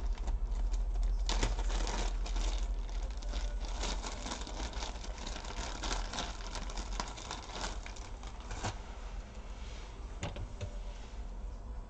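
Irregular light clicks, taps and rustling from small hand tools and thermal-pad pieces being handled on a work mat, busier in the first part and thinning out near the end.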